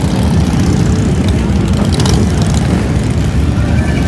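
A steady stream of motorcycles, mostly Harley-Davidson V-twin cruisers and touring bikes, riding past one after another, their engines making a continuous, dense low drone.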